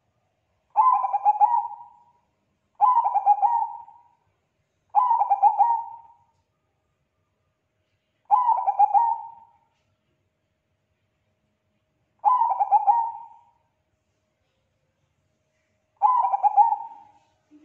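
Zebra dove of the Bangkok perkutut type cooing: six phrases of its stuttering, rapid-note coo song, each just over a second long and trailing off, spaced two to four seconds apart.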